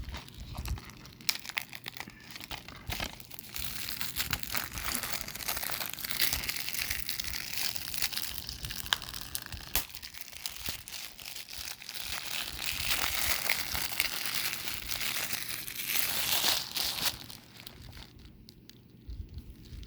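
Plastic shrink wrap being torn and peeled off a DVD case, crinkling and crackling on and off, dying down near the end.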